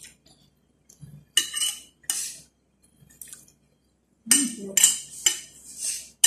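Metal spoon and fork scraping and clinking against a ceramic plate while rice and chicken are scooped up. There are a few short scrapes in the first half and a quicker run of them near the end.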